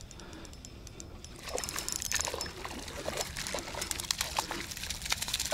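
A hooked fish splashing at the water's surface near the bank as it is reeled in on a spinning rod, in repeated irregular splashes starting about one and a half seconds in.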